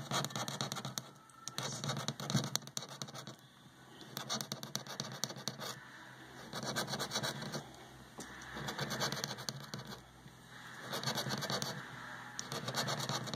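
Scratch-off lottery ticket being scratched, its coating scraped off the number spots in about six short spells of rubbing with brief pauses between.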